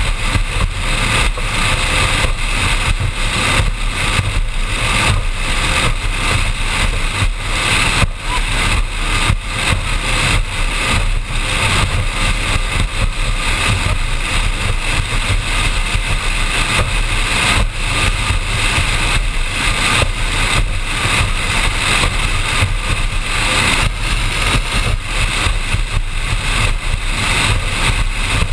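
Performance powerboat running at speed across choppy water: a steady low engine drone buried in a heavy rush of wind and water, with frequent uneven jolts.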